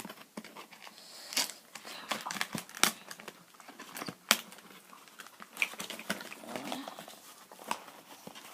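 Plastic packaging crinkling and tearing, with scattered sharp clicks and knocks of hard plastic parts being handled.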